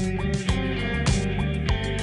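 Background music with a steady beat, a little under two beats a second.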